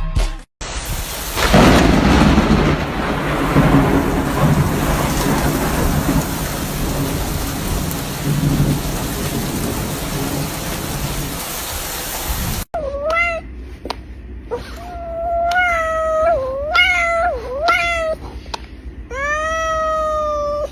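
About twelve seconds of steady rushing noise with low rumbles. Then, after a cut, a cat meows several times, the last meow long and drawn out.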